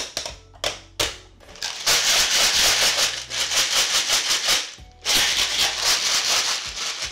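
Jelly beans rattling inside a plastic jelly bean dispenser as it is shaken, in two long bouts with a short break about five seconds in, after a few single clicks at the start.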